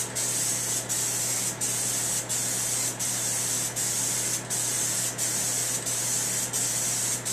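Aerosol spray can of John Deere Blitz Black paint hissing steadily in back-and-forth passes, with a brief break about every three-quarters of a second, laying a light first coat.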